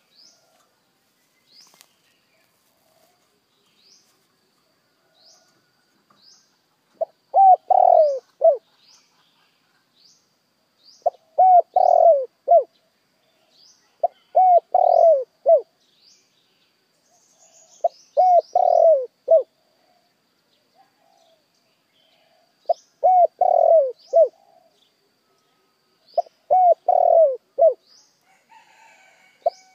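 Spotted dove cooing: six phrases of several falling coo notes each, one every three to four seconds starting about seven seconds in. Faint short high chirps run throughout.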